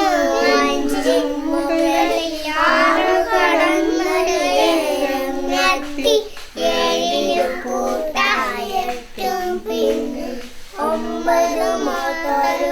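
A child singing in high, held phrases, with short breaks between them.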